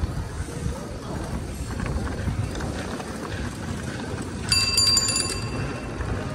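Cycle rickshaw rolling along a city street: a steady rumble of wheels and road noise, with wind on the microphone. About four and a half seconds in, a rickshaw bell is rung rapidly for under a second, ringing high and bright.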